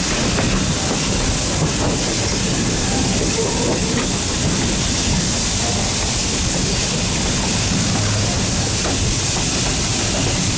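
A steam train running, with steady wheel-on-rail noise and a hiss of steam.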